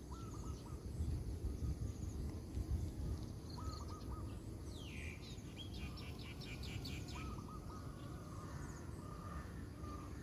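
Several birds calling: small groups of short chirps repeated every few seconds, and a falling call about five seconds in followed by a quick run of high notes. Underneath is a steady low rumble of outdoor noise and a faint, steady high buzz.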